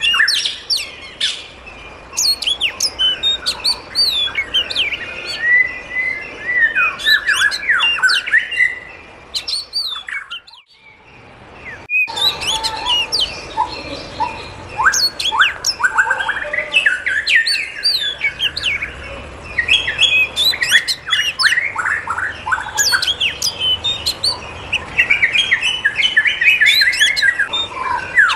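A flock of aviary birds chirping and calling together, a dense mix of quick overlapping chirps and sweeping whistled notes, with occasional squawks; the chorus drops away briefly about ten seconds in, then resumes.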